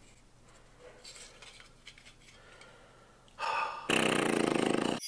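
Faint clicks and rustles of a pistol magazine being handled, then about three and a half seconds in a short burst of hiss followed by a louder rapid buzzing that lasts about a second and cuts off.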